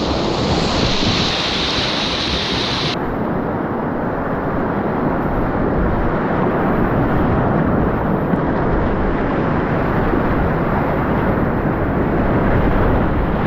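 Whitewater rapids rushing, a loud steady roar of water with wind and water buffeting the microphone; the hiss in the upper range cuts off abruptly about three seconds in.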